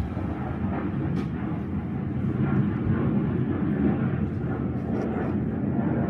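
Steady low rumble, with a few faint crinkles of a clear plastic blister pack being handled.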